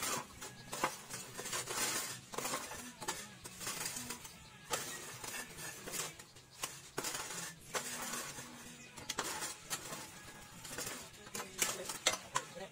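Irregular clinks, knocks and scrapes of metal as the steel mould of a manual paving-block press is worked by hand and loaded with concrete mix.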